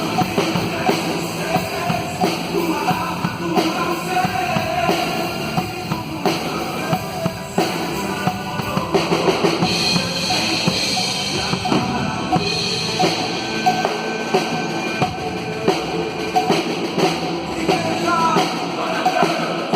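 Drum kit, with bass drum and cymbals, played along to a recorded worship song with band and keyboards: a drum cover.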